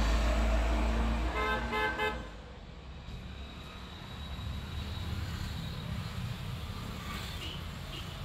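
A passing motor vehicle's low engine rumble, with its horn tooting a few short beeps about a second and a half in. The rumble then drops away to a quieter steady background.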